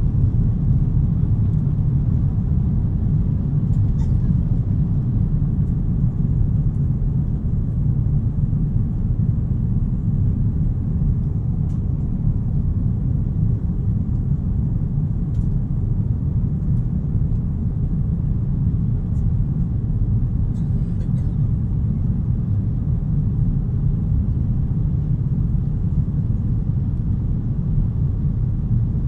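Steady low rumble of an airliner's jet engines and airflow heard from inside the passenger cabin, with a few faint clicks.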